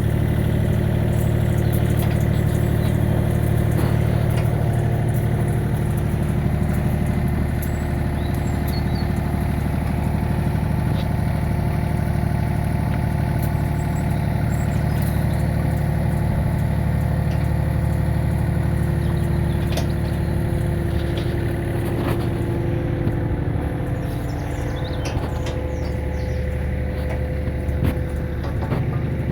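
Excavator's diesel engine running steadily, with a few faint clicks and clatter over it.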